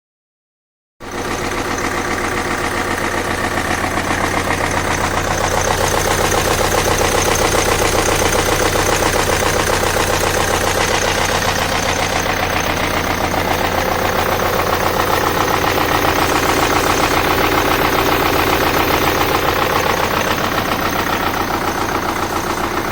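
BMW N47 four-cylinder turbodiesel engine running with a rapid, even knock, from worn connecting-rod big-end bearings: the engine destroyed by poor oil servicing. The sound comes in abruptly about a second in.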